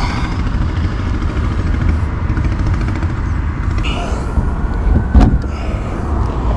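Steady low rumble of an idling vehicle engine, with light scraping and one sharp knock a little past the five-second mark from tools working at a locked vehicle door.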